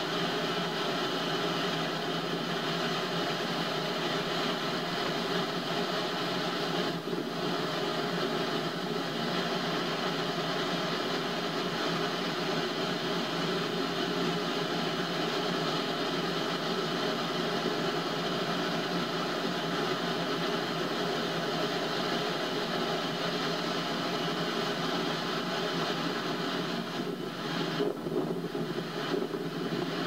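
Ocean surf heard as a steady, even roar of waves, with no single break standing out.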